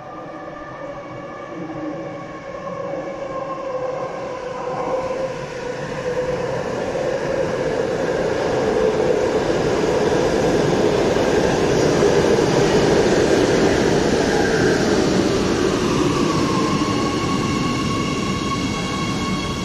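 Oslo Metro MX3000 train pulling into the station and slowing to a stop, growing louder as it approaches. Its motor whine falls in pitch as it brakes, and a steady higher tone comes in near the end.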